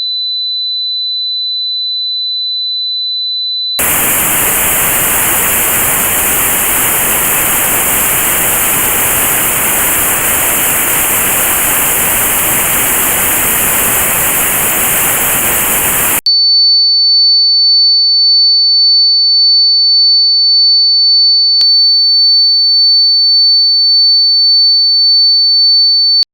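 Tinnitus test sounds. A steady high-pitched pure tone plays first. About four seconds in it switches abruptly to notched white noise, a loud even hiss with a band of high pitches cut out, which lasts about twelve seconds. Then it cuts to a slightly higher pure tone with a faint regular pulsing.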